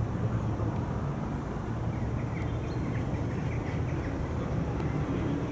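Steady low outdoor rumble, with a few faint, short high chirps near the middle.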